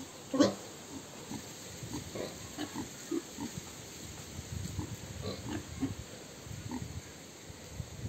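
Pig grunting: one loud grunt about half a second in, followed by a run of short, soft grunts.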